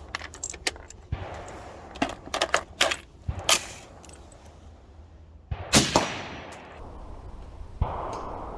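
AR-15 rifle with a 20-inch 5.56 barrel firing hollow point rounds at a steel target: a few sharp shots, with the steel plate clanging and ringing on the hits. The loudest crack, with a long ring after it, comes just before the six-second mark. Small clicks of handling come before the first shot.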